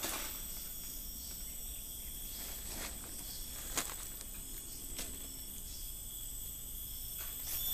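Steady chorus of insects in several thin high tones, with a few faint clicks.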